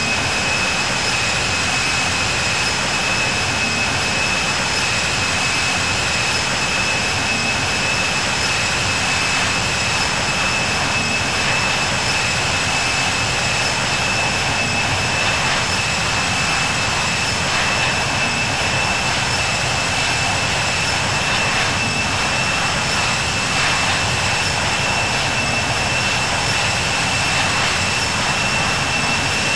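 Boeing 737-700's CFM56-7B jet engines running, heard from inside the cabin: a steady rush of noise with a steady high whine over it and a fainter, higher whine above that.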